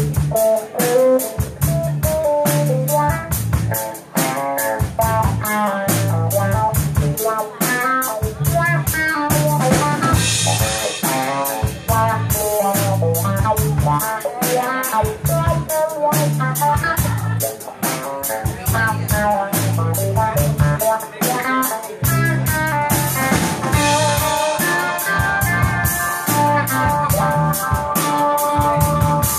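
Live instrumental band: electric guitar playing a quick run of notes over a drum kit keeping a steady beat, with a cymbal crash about ten seconds in and long held notes near the end.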